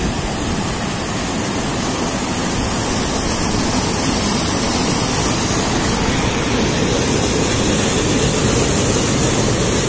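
The Bhairavi river rushing over rocks in a series of small falls into the Damodar: a steady rush of white water that grows slowly louder.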